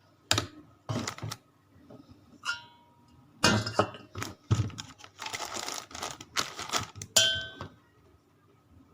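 Handling noises from a stainless steel food chopper's parts being moved and fitted: scattered knocks, rustles and clatter, with a short ringing metal clink about two and a half seconds in and a brighter one near the end. The motor is not running.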